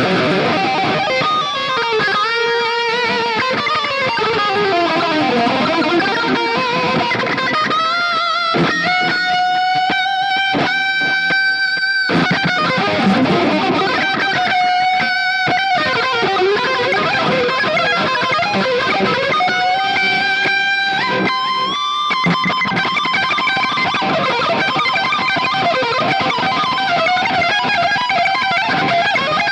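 Ibanez electric guitar played through a Mooer GE200 amp-modelling multi-effects unit: fast shred lead runs, broken by a few long held notes around the middle.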